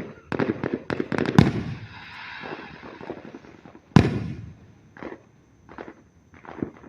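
Fireworks going off: a quick run of sharp bangs in the first second and a half, then crackling, a loud single bang about four seconds in and a few smaller bangs near the end.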